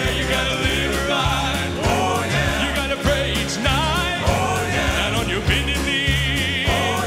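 Male southern gospel quartet singing live with instrumental backing: several voices in harmony over a steady bass line, with a high voice holding a note with wide vibrato near the end.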